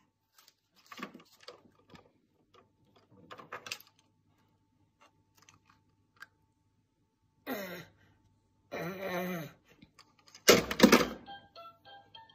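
A baby playing with plastic toys on a windowsill: scattered light taps and knocks, then one loud thunk near the end as a toy is set or dropped down on the sill. Two short pitched sounds come just before the thunk, one falling and one longer and wavering.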